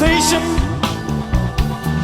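Blues-rock band playing an instrumental passage: sustained lead notes over bass and a steady drum beat.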